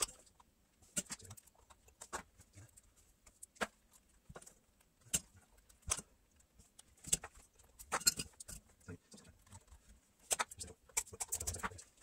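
Scattered light clicks and taps, irregular and a second or two apart, from a soldering iron, solder wire and hands working against an amplifier's metal chassis and circuit board while a wire is soldered into a board hole.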